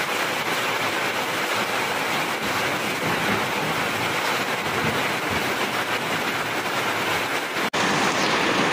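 Heavy hail mixed with rain pelting corrugated metal roofs and the ground: a dense, steady clatter. It cuts out for an instant near the end and comes back slightly louder.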